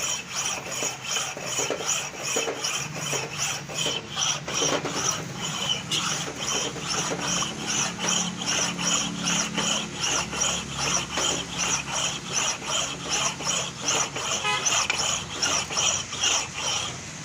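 Cylinder head surfacing machine's cutter facing a Maruti Baleno cylinder head: a scraping cut that repeats evenly about three times a second and stops suddenly near the end.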